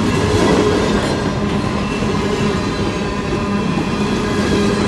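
Freight train's coal cars rolling past, a steady rumble of steel wheels on rail with faint ringing tones held underneath.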